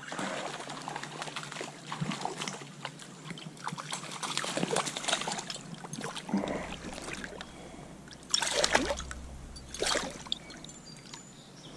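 Stream water splashing and sloshing irregularly as someone wades through it, with two stronger splashes about eight and a half and ten seconds in.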